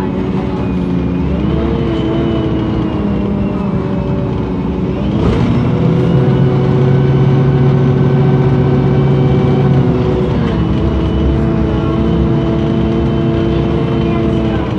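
MAN NL 273 T3 LPG city bus's gas engine running, its pitch stepping up about a second and a half in and again about five seconds in, holding steady, then dropping back about ten seconds in.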